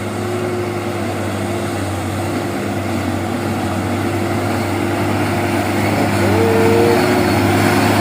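Truck engine running and growing gradually louder, with a short higher tone about six seconds in.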